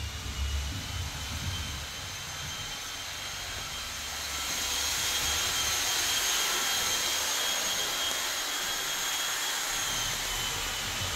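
A small electric motor running with rushing air: a steady high whine over a hiss that grows louder about four seconds in and then holds.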